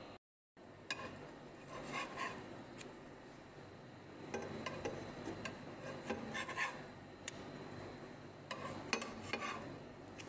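Spatula scraping across a nonstick frying pan as it slides under pancakes and flips them, in three spells of scrapes and light clatters.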